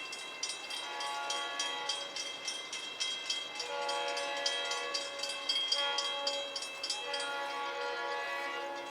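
Freight locomotive air horn sounding several long chord blasts, with rapid metallic strikes about three times a second throughout, as the train approaches.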